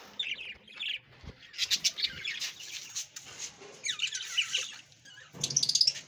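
Budgerigars chirping and chattering in short clusters of warbling calls, with a louder, rapid burst of chatter near the end.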